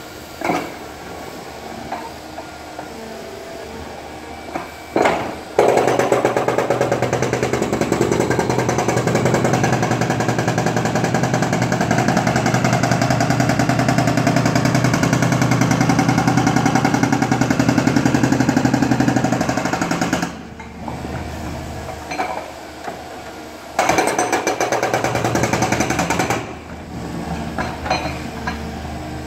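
Hydraulic breaker on an Atlas 160W wheeled excavator hammering up the top layer of paving between tram rails, a long spell of rapid, even blows starting about five seconds in. It stops, then a shorter spell follows a few seconds later. Between spells the excavator's engine runs, with scattered knocks as the chisel is set on the ground.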